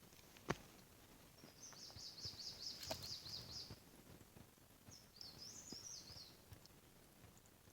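A songbird singing: a fast trill of high repeated notes lasting about two seconds, then a shorter phrase about five seconds in. A single sharp click sounds about half a second in.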